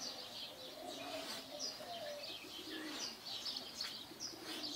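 Faint bird calls: many short high chirps with some lower wavering notes.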